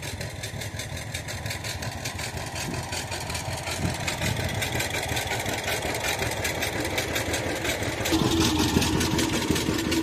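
The engine of the small vehicle being ridden, running steadily at low speed with an even pulsing beat. About eight seconds in a steady humming note joins it and the sound gets a little louder.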